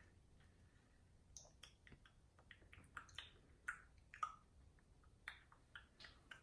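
Near silence with faint, scattered short clicks and ticks.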